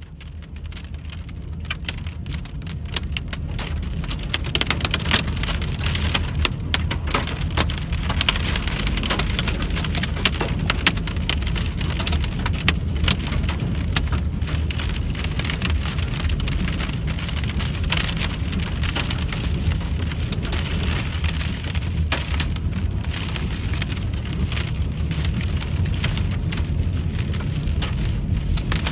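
Rain pelting a car's windshield and roof: a dense, steady patter of drops over a constant low rumble. It fades in over the first few seconds.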